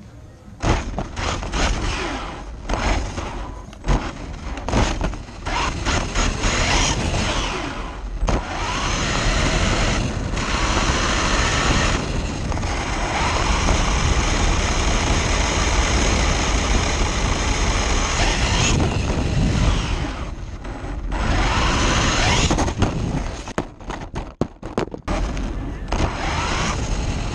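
Onboard sound of a Traxxas 1/16 Mini E-Revo electric RC monster truck driving on asphalt: electric motor and gear whine over tyre and road noise. There are several short throttle bursts in the first eight seconds, then a steady run of about ten seconds. It eases off around twenty seconds, picks up again, and turns choppy near the end.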